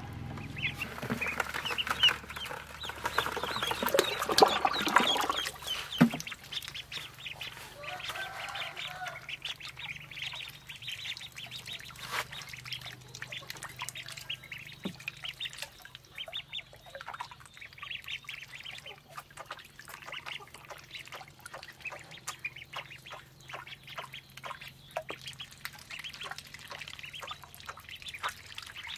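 A brood of ducklings peeping: many short, high calls, densest and loudest for the first few seconds, then thinning to scattered peeps.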